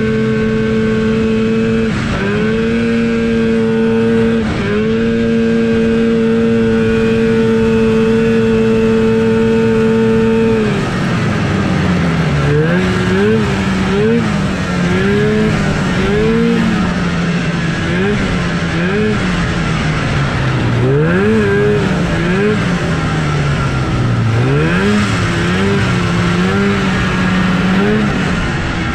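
Vintage TX340 racing snowmobile's two-stroke engine held at steady high revs, dipping briefly twice. About eleven seconds in the revs drop and rise and fall unevenly at low speed as the sled is throttled along. The engine is down on power from an ignition problem.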